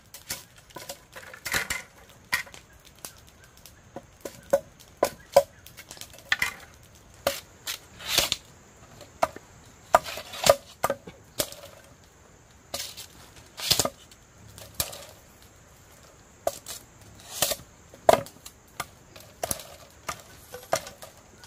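A blade chopping into wood in an irregular series of sharp strikes, roughly one to two a second, some much louder than others.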